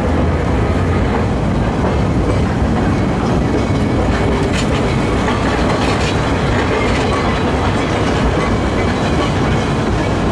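Manx Electric Railway electric tram running along the track, heard from on board: steady wheel-and-rail rumble with a few sharp clicks a few seconds in.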